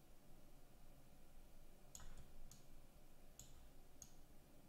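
Four faint computer-mouse clicks, starting about two seconds in and roughly half a second to a second apart, over near-silent room tone.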